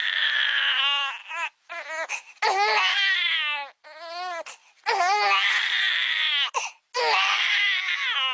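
A baby crying: about four long, high-pitched wavering wails with short sobbing cries and brief breaths between them.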